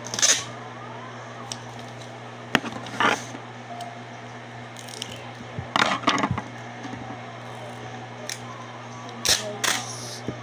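Paper, tape and scissors handled on a table: scattered rustles, snips and taps in a few short clusters, over a steady low hum.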